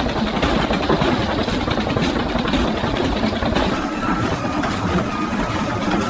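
Front-loading washing machine running hard under overvoltage (400 V, far beyond its rating), a loud steady mechanical rumble and rattle as the machine rocks on its feet.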